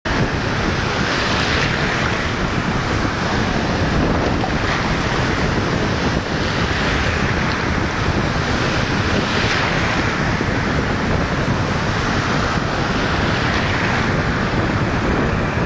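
Small sea waves breaking and washing in shallow surf, swelling every couple of seconds, with steady wind rumbling on the microphone.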